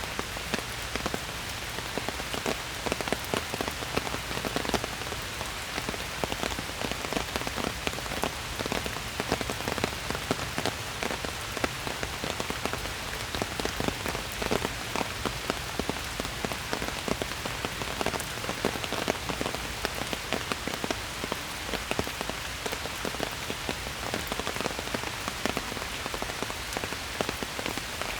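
Steady rain falling in a forest, a constant hiss with many close individual drops pattering throughout.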